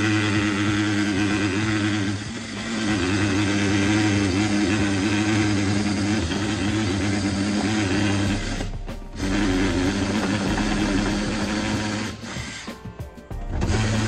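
Cordless drill/driver running under load against a sheet-metal duct and detector housing, its motor giving a steady hum. It stops briefly about two seconds in and again near nine seconds, then gives a few short trigger bursts near the end.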